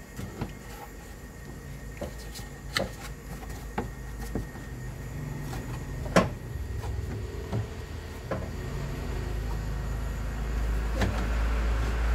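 Hard plastic clunks, scrapes and clicks as the radiator fan shroud is pushed and fitted into place, with the sharpest knock about six seconds in. A low rumble builds in the last few seconds.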